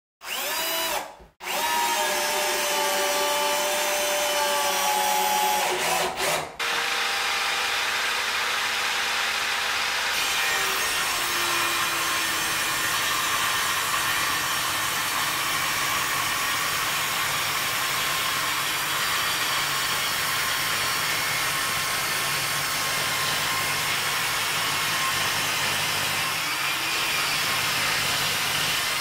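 A cordless drill driving screws, its motor whine rising as it spins up, for the first several seconds. Then a table saw runs steadily while ripping wooden strips, its pitch dropping slightly as the blade cuts.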